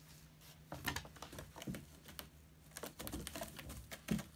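A kitten scrambling and clawing at a cat tree's sisal-rope post: scattered scratchy clicks and rustles, with a louder knock about four seconds in.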